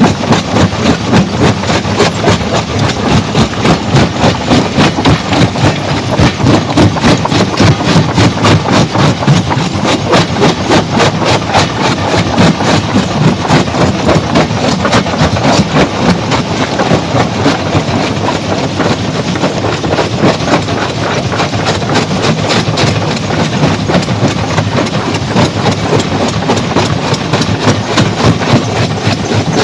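Stone-crushing machinery running with a steady rhythmic clatter of about two to three knocks a second, under a dense grinding noise.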